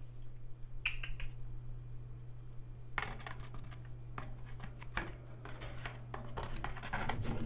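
Cardboard rustling and scraping against the wire bars of a rabbit cage, with scattered clicks that come thicker and faster near the end, over a steady low hum.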